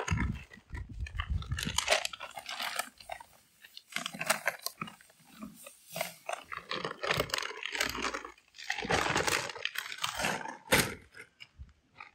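Dry mortar mix poured from a paper sack into a bucket: the sack crackling and the powder pouring in, in irregular bursts with short pauses.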